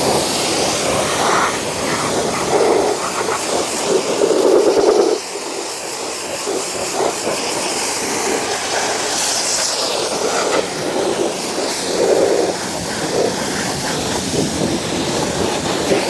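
Jet of water from a spray-gun wand with a green fan tip hissing steadily against a car's door panel as it is sweeps across the paint, dipping slightly in level about five seconds in.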